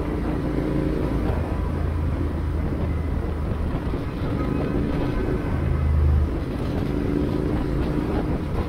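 Royal Enfield Interceptor 650's 648 cc parallel-twin engine running while the bike is ridden, with wind and road noise. The engine note swells and eases with the throttle and is loudest about six seconds in.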